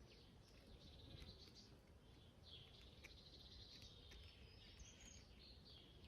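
Near silence: faint outdoor ambience with distant birds chirping in high, trilling phrases.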